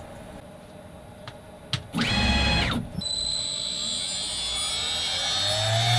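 CNC router starting a job: a short burst of machine-motor movement, then the spindle motor starting with a steady high whine and a tone that rises slowly as it spins up.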